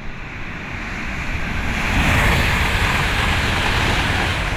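Rushing noise with no clear pitch, swelling to a peak about two seconds in, holding, then easing off near the end.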